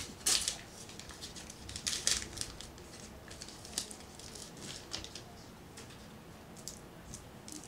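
A baseball card pack wrapper being torn open and crinkled: a run of short crackles and rips, loudest in the first two seconds, then fainter rustles and ticks as the cards are pulled out.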